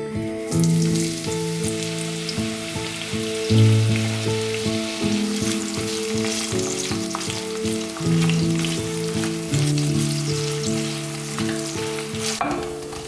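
Food frying in a hot pan, a dense sizzle with crackles that starts about half a second in and dies away near the end.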